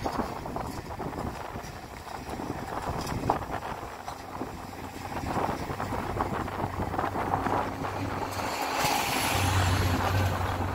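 Wind buffeting the microphone, with the distant rumble of an airliner's jet engines on the runway after touchdown. The jet noise swells with a faint high whine over the last couple of seconds.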